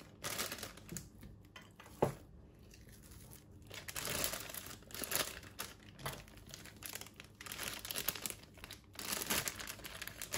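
Clear plastic piping bag crinkling and rustling in the hands as it is filled and squeezed with buttercream icing, with a single knock about two seconds in.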